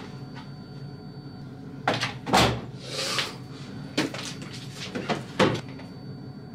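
Knocks and clicks of an LG front-loading washing machine being loaded: a solid thump about two seconds in, a brief rustle, then several lighter clicks and knocks as a detergent bottle is handled and the detergent drawer is pulled open.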